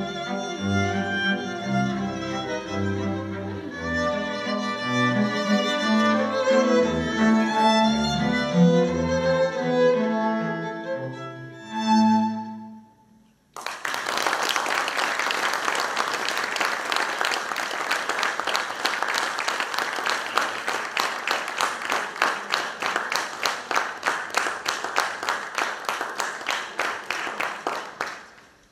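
String quartet of two violins, viola and cello playing the close of a piece, ending on a held chord about twelve seconds in. After a short silence, audience applause starts suddenly and fades out near the end.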